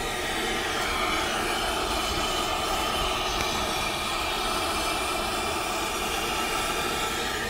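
Gas torch flame burning with a steady rushing hiss, heating a rusted gooseneck hitch ball to loosen it.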